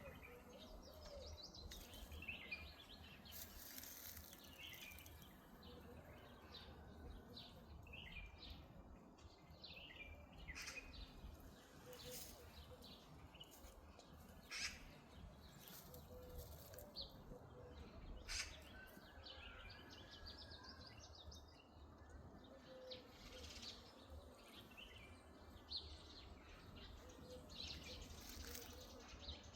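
Faint birdsong: several small birds chirping and twittering on and off, over a low rumble of wind, with a few sharp clicks.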